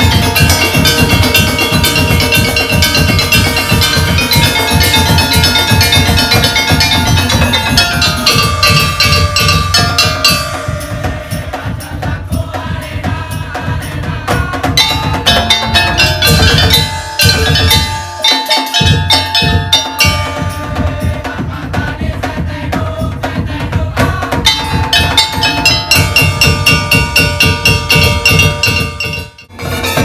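Madurese daul (tong-tong) ensemble playing: heavy drums under fast, mallet-struck metal bars ringing in interlocking patterns. The drums drop out briefly about two-thirds of the way through, and the music breaks off for a moment just before the end.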